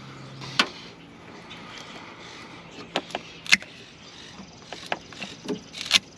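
Scattered sharp clicks and knocks of hand tools and metal parts being handled while working a stuck fuel hose off its metal line; the loudest come about half a second in, around three and a half seconds, and near the end.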